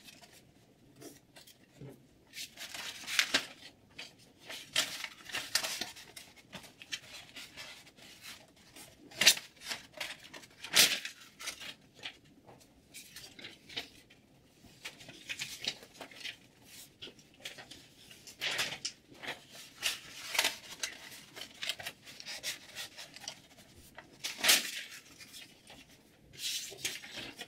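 Freshly sharpened M390-steel chef knife slicing through paper: a series of irregular crisp swishes, a few of them ending in a sharp tick.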